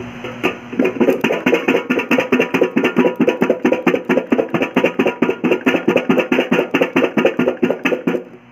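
Jamun (Java plums) shaken hard inside a steel vessel closed with an upside-down steel plate: a fast, steady rattle of fruit knocking against the metal, about six knocks a second. It starts about a second in and stops abruptly just before the end. The shaking bursts the fruit open so the salt, sugar and chilli mix in.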